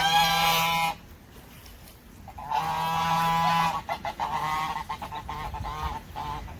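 A goose honking: two long, steady honks a couple of seconds apart, then a run of shorter, choppy honks.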